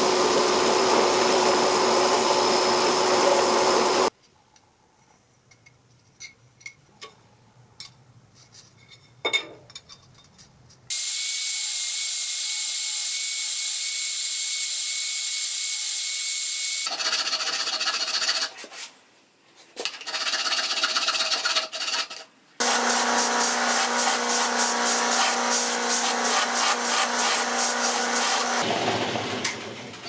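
A run of workshop power-tool sounds on metal parts. A machine runs loudly for about four seconds, then it goes quiet apart from a few light clicks. A bandsaw runs steadily with a thin wavering whine, cutting a small metal piece. After some broken, stop-start sounds, another machine runs loudly with a fast regular pulsing for about six seconds.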